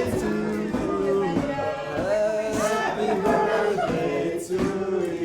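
Music with several voices singing together in held notes.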